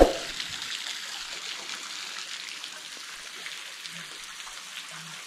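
Water trickling and dripping in a cave: a steady fine hiss with scattered small drips, opening with one brief knock.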